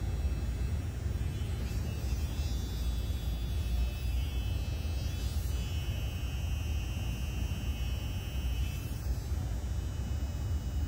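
Steady low rumble of outdoor background noise, with faint high-pitched tones from about two seconds in until near the end.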